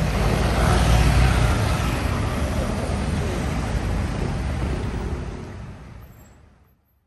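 Central London road traffic running steadily, then fading out to silence near the end.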